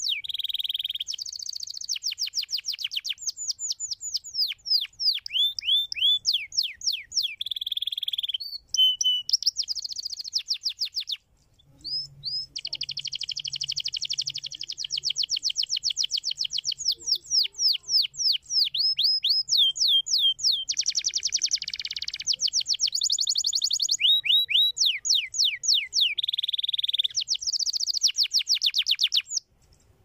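Domestic canary singing a long song of fast trills and rolls, each phrase a rapid run of repeated downward-sliding notes. There is a brief break about eleven seconds in, and the song stops just before the end.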